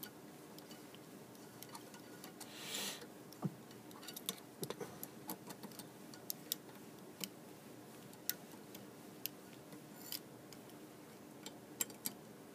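Scattered faint metallic clicks and ticks of an Allen wrench and small metal parts being handled while the bolts holding a spoke cutter's measuring rod are tightened, with a brief rustle about two and a half seconds in.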